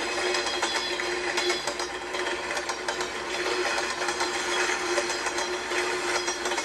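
Small motorised toy train running: a steady motor hum with fast, continuous mechanical clicking.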